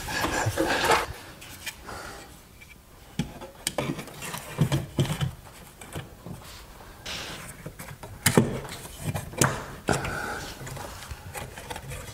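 Scattered knocks and clicks of ladder work: a fiberglass stepladder being climbed and a round template handled and pressed against the ceiling drywall.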